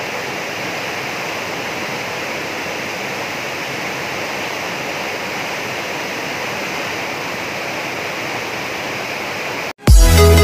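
Fast-flowing brown floodwater rushing in a steady, unbroken roar of water noise. It cuts off abruptly just before the end, and loud electronic music with a heavy beat starts.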